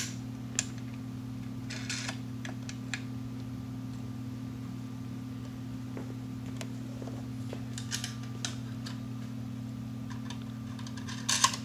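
Scattered light clicks and taps of wing nuts being threaded on and the kiosk's sheet-metal stand and panel being handled, with a louder cluster of clicks near the end. A steady low hum runs underneath.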